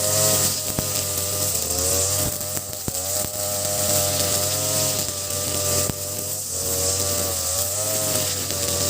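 Ogawa BG330 33cc two-stroke brush cutter, fitted with a 43cc carburettor, running at high revs while cutting grass; the engine pitch dips and recovers several times as the throttle and load change.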